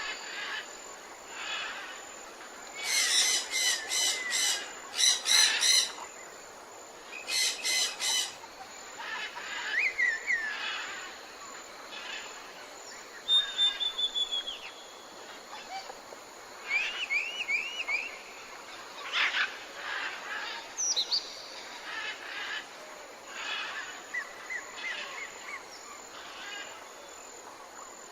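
Several wild birds calling and singing over a soft steady hiss: loud bursts of fast repeated notes about three seconds in and again near eight seconds, then scattered whistled notes and slurred calls.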